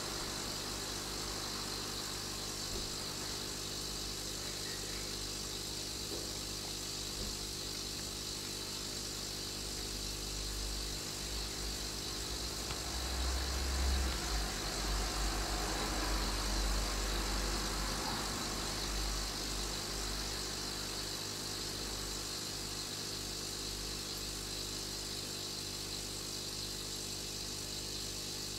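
Steady mechanical hum with a constant hiss, holding several steady low tones; a low rumble swells for a few seconds about halfway through.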